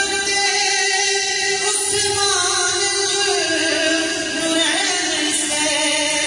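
A man singing an Urdu devotional kalaam in praise of Hazrat Abu Bakr Siddique into a microphone, drawing out long held, ornamented notes.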